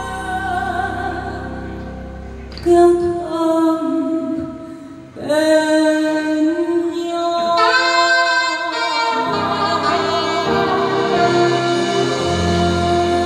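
A woman singing a Vietnamese song live with a band. The bass and drums drop out about two and a half seconds in, leaving her long held notes over lighter accompaniment, and the full band comes back in near the nine-second mark.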